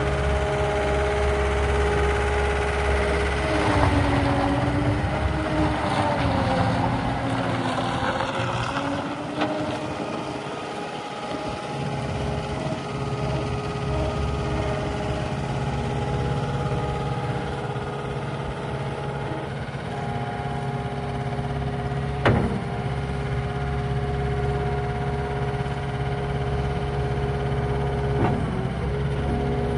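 Diesel engine of a CAT 272D2 skid steer running steadily, its note wavering for a few seconds early on before settling. Two sharp clicks or knocks cut in, the louder one about two-thirds of the way through and another near the end.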